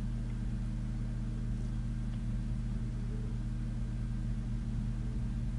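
Steady low hum, unchanging, with nothing else happening.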